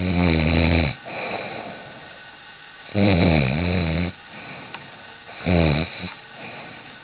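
A person snoring loudly in sleep: three loud snores, the first two about a second long and a shorter one near the end, with softer breathing between them.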